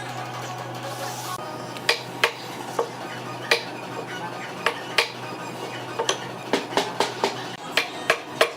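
Irregular sharp knocks and taps of hand tools working wood, about fifteen in all, over a steady low hum that stops near the end.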